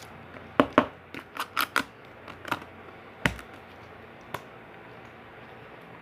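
Small plastic slime pots being handled: a scattered series of sharp clicks and taps, with one heavier knock about three seconds in, then still.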